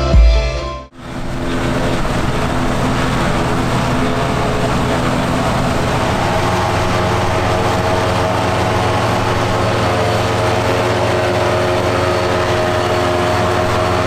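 Background music with drums ends about a second in. Then an engine runs at a steady speed with an even, unchanging note.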